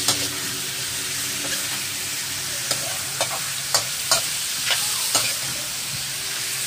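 Chicken wings frying in oil in a wok, sizzling steadily as they brown, while a metal spoon scrapes and clicks against the pan about eight times as they are stirred.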